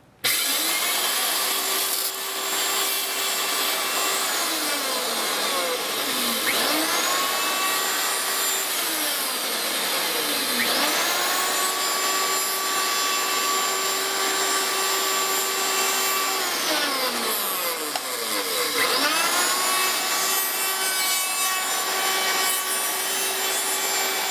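Electric router on a home-made wheeled carriage cutting bamboo cane in a metal planing form. It starts suddenly and runs with a steady whine over the cutting noise. Its pitch sags and climbs back three times.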